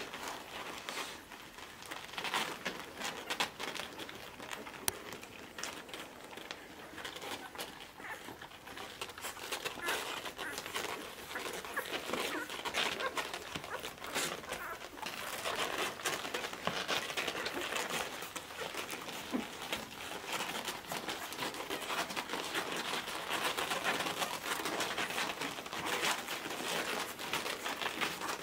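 A litter of 11-day-old miniature Australian Shepherd puppies nursing: a dense run of wet suckling and smacking clicks and rustling on the whelping pad, with occasional puppy squeaks and the mother licking a pup. The activity gets busier about ten seconds in.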